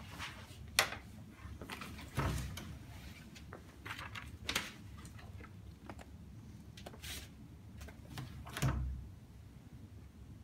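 Handling noises at a wooden table: scattered clicks and rustles as a person sits down and handles a plastic deck box and a card binder, with two dull thumps, about two seconds in and again late, the louder one as the binder goes down on the tabletop.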